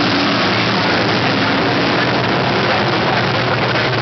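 A pack of dirt-track sportsman modified race cars running hard around the oval just after the green flag, their engines blending into one loud, steady sound.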